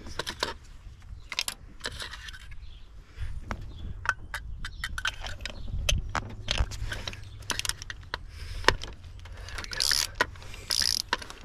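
Metal hand tools clicking and clinking as a ratchet and spark plug socket work a stubborn spark plug loose and back it out of a BMW N54 engine. The clicks come irregularly and are busiest in the middle of the stretch.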